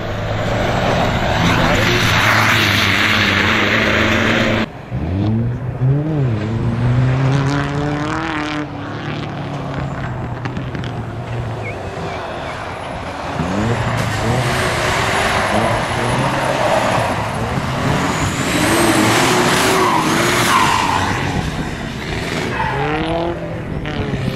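Off-road race truck's engine revving hard and repeatedly as it climbs and crawls over rough dirt, the pitch rising and falling with each burst of throttle. About five seconds in the sound breaks off suddenly and picks up again.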